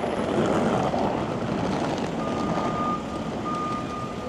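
Street traffic passing, then a vehicle's reversing alarm starting about two seconds in: long beeps at one steady pitch, a little under one a second, over the traffic noise.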